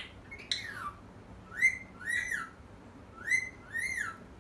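Pet parrot whistling: one falling whistle, then two pairs of short arched whistle notes, each rising and then falling.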